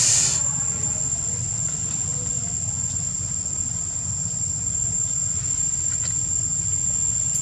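Insects droning in one steady high-pitched tone, over a steady low rumble. A short rush of hiss fades out in the first half second.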